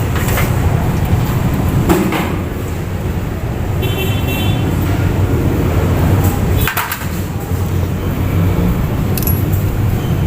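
Steady low vehicle engine rumble, with a few sharp clicks and a brief high tone about four seconds in.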